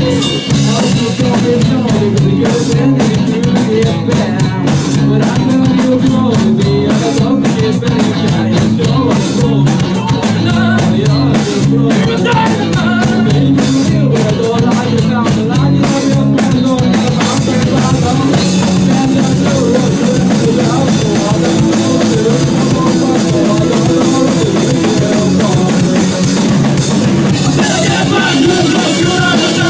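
Rock band playing live, with the drum kit driving a steady beat under the other instruments.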